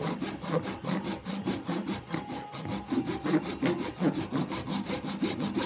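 A small hand saw cutting into a Titleist Pro V1 golf ball held in a clamp, rasping steadily back and forth in quick, repeated strokes.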